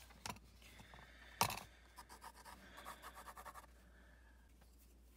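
A sharp knock about a second and a half in, then about two seconds of quick scratching strokes of a pencil on drawing paper clipped to a clipboard.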